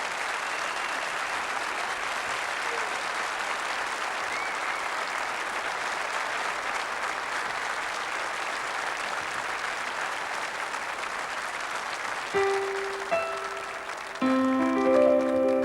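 Audience applauding steadily. About twelve seconds in, the applause fades under a few piano notes, then a loud piano chord begins the playing.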